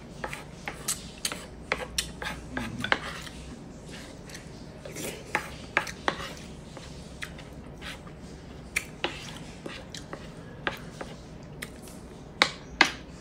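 Close-miked eating sounds: scattered sharp clicks and taps as pork and rice are picked apart by hand on a wooden board, with two louder mouth smacks near the end as a bite is taken.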